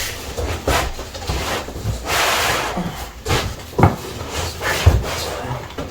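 Cardboard and foam packaging scraping and rubbing as a large flat-screen TV is lifted out of its box, with a few sharp knocks.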